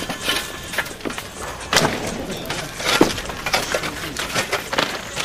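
Irregular sharp crashes and clatters of hard material being knocked down or dropped, the loudest about three seconds in.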